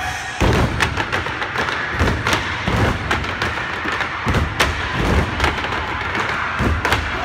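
Step team stomping and striking canes on the stage floor: a fast, uneven run of heavy foot thuds and sharp cane taps.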